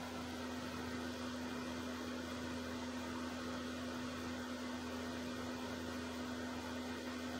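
A steady low mechanical hum with a constant hiss, unchanging throughout.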